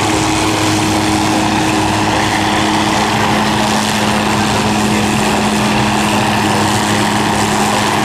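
MD 500 light turbine helicopter hovering low, its engine and rotors running at a steady pitch and level.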